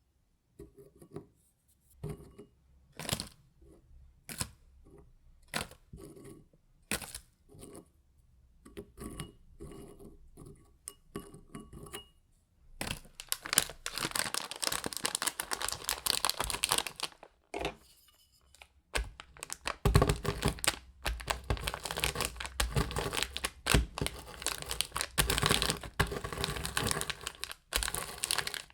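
Kitchen packaging crinkling and tearing: scattered short rustles and taps at first, then a long stretch of dense, continuous crinkling with a brief pause partway through.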